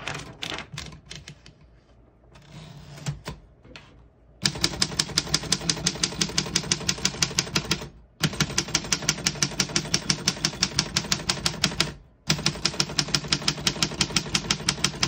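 1933 Underwood 4-bank portable typewriter with a few scattered light clicks at first, then typing in fast, even runs of keystrokes, about eight a second, broken by two brief pauses.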